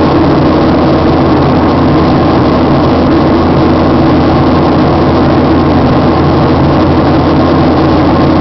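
Passenger aircraft cabin noise in cruise flight: a steady, loud drone of the engines and the rush of air past the fuselage, with a low hum at constant pitch.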